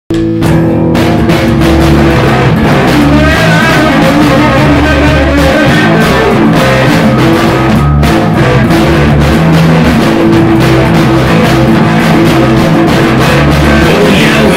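Instrumental hard rock: a guitar riff over a drum kit, starting abruptly, with a brief cut about eight seconds in.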